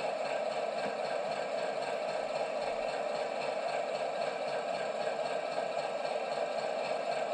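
Cavalex Class 60 model locomotive running steadily, a continuous even mechanical running sound with faint rattle.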